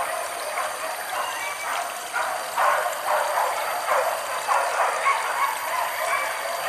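Boar-hunting dogs barking and yelping, about two calls a second without a break.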